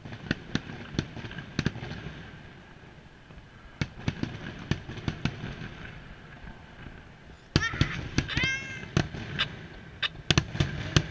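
Fireworks exploding in clusters of sharp bangs and crackles, three volleys in a row. A short, wavering high-pitched sound cuts through about eight seconds in.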